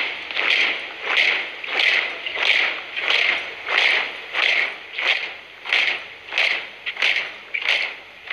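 A flag-raising troop marching in step, their feet striking the ground together in a steady cadence of about three steps every two seconds, each step a crisp, scuffing stamp.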